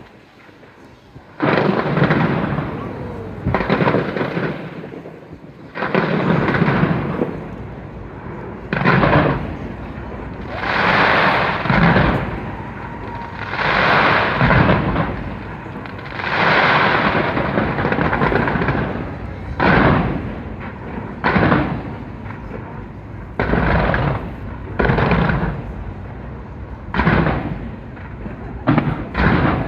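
A fireworks display going off in rapid succession, with booming bursts every second or two and stretches of crackling. It starts a little over a second in, the longest crackling comes in the middle, and sharper single bangs follow near the end.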